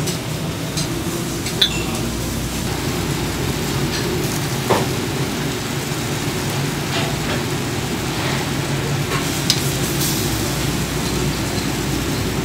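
Steady restaurant-kitchen noise: a low hum under a sizzling hiss from the grill, with three sharp clinks of utensils or dishes.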